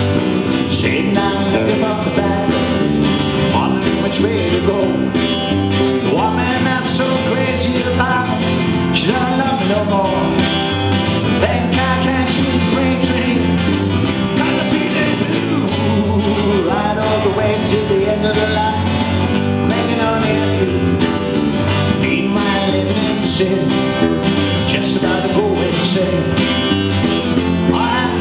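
Live acoustic blues on guitars: a strummed acoustic guitar and a second guitar playing an instrumental break, with a lead line that bends up and down in pitch.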